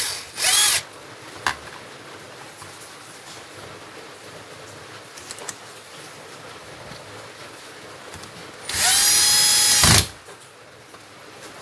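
Electric drill/screwdriver run twice: a short burst about half a second in, then a longer run of about a second near the end, the motor pitch rising as it spins up and then holding. It is driving screws to mount the switch assembly.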